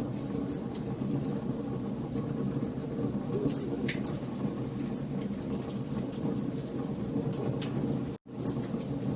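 Wood fire in a fireplace crackling: a steady low rush of burning with frequent sharp pops and snaps. The sound cuts out for an instant about eight seconds in.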